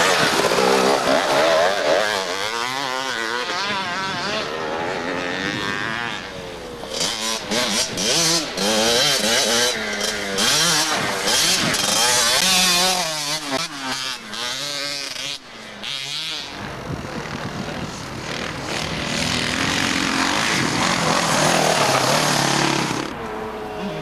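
Dirt bike engines revving up and falling back again and again as riders work the throttle on a rough off-road course. The engine pitch climbs and drops in quick waves, with a few abrupt breaks in the sound.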